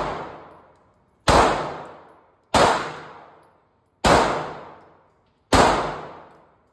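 Semi-automatic pistol fired shot by shot, four shots about a second and a half apart. Each crack rings on for about a second off the walls of an indoor range.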